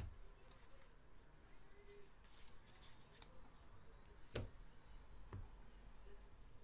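Faint rustling and sliding of baseball trading cards being flipped through by hand, with a sharp click about four and a half seconds in and a softer one a second later, over a low hum.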